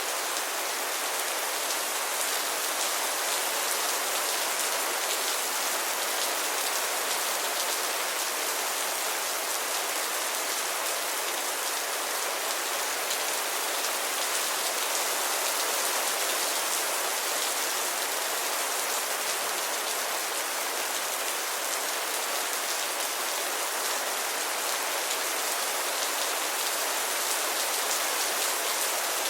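Steady rainfall, an even hiss of many raindrops landing on a surface, with no change in intensity.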